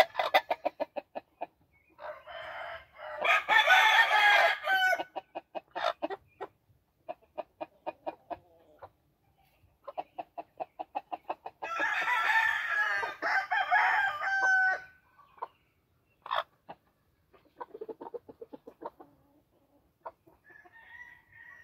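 American game rooster crowing twice, each crow about three seconds long, with runs of rapid clucking between and after the crows.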